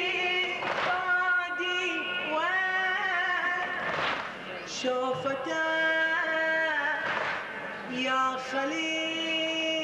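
A male reciter chants a Shia Muharram elegy (latmiya) solo into a microphone, holding long, wavering notes that step up and down in pitch. A short rush of noise comes about every three seconds.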